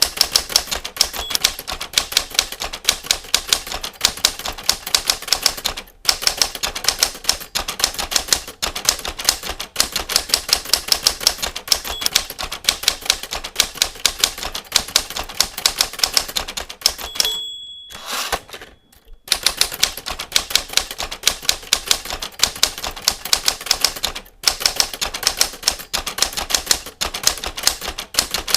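Manual typewriter keys struck in rapid, steady typing. About seventeen seconds in, a bell dings and the typing breaks off for a second or so, then starts again.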